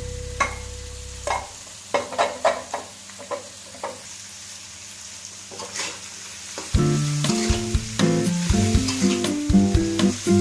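A spatula clicking and scraping in a frying pan as a stir-fry is tossed, over a light sizzle. Background music plays for the first second and comes back in about two-thirds of the way through.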